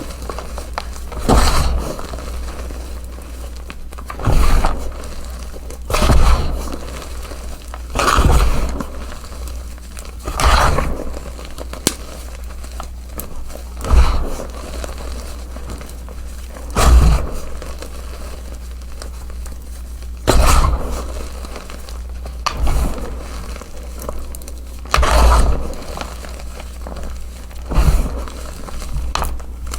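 Chunks of gym chalk crunching and crumbling as they are crushed, with a crunch every two to three seconds over a steady low rumble.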